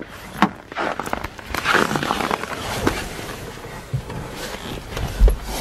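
A person climbing into a car's driver's seat from the snow: footsteps, clothing rustling and scattered clicks, with a heavy thump near the end.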